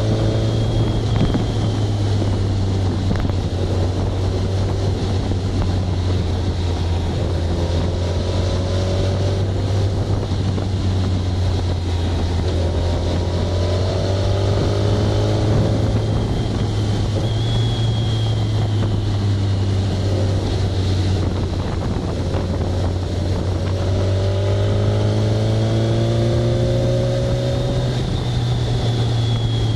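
Engine of a moving road vehicle running at cruising speed as a steady low drone. It rises in pitch several times as the vehicle speeds up, over wind and road noise.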